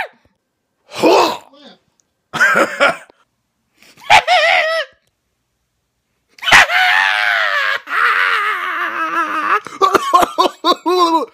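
A man's wordless vocalising: three short yells or groans in the first few seconds, then a long high cry of about three seconds whose pitch wavers, ending in a run of quick choppy cries.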